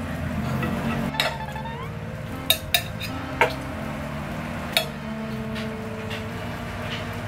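Metal tongs clinking against a plate and a wooden cutting board as pieces of meat are picked up: about five sharp clinks, two of them close together in the middle.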